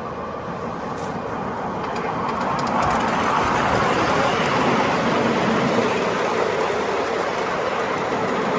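A 5-inch gauge ride-on miniature train running along the track, its wheels rumbling on the rails; the sound grows louder to a peak in the middle and eases a little near the end.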